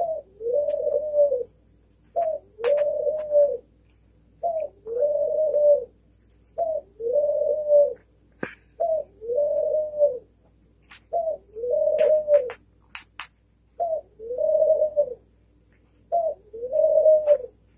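A dove cooing over and over, each call a short note followed by a longer, held coo, about eight calls in all, roughly every two seconds. Short sharp clicks come between some of the calls.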